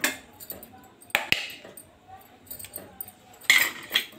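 A few sharp clicks and small clinks at a kadhai of hot melted ghee, with a brief hiss about three and a half seconds in.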